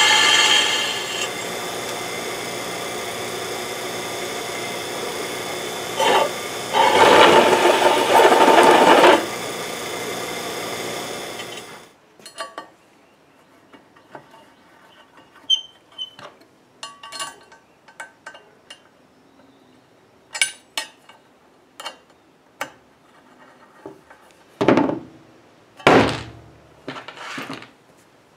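Drill press running a twist bit through a steel plate: a squeal at first, then a louder stretch of cutting from about seven to nine seconds in, and the sound stops about twelve seconds in. After that come small clicks of parts being handled on a bench, with two louder knocks near the end.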